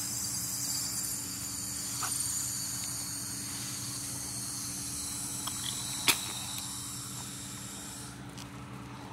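Crickets chirping steadily in a night chorus over a low steady hum. There is one sharp click about six seconds in, and the chirping fades out near the end.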